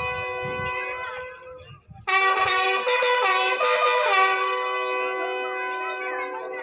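Wind-instrument music: a melody of held notes over a steady drone, breaking off briefly about two seconds in and then resuming.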